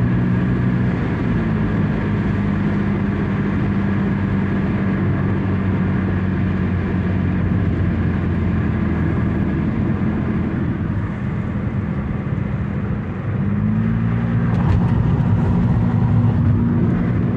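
Car engine and road noise heard from inside the cabin while driving on a highway, a steady low drone. The engine note dips about a second in and climbs again near the end, growing louder.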